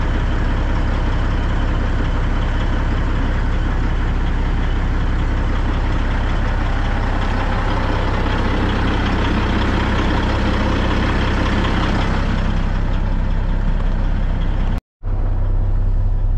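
Diesel engine of a 2003 Kenworth T800 dump truck idling steadily, heard up close alongside the truck's frame. The sound drops out for a moment near the end, then the same steady idle continues.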